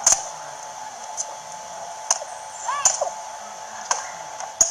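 A toy sword striking a tree trunk, giving about six short sharp knocks at irregular intervals over a steady hiss.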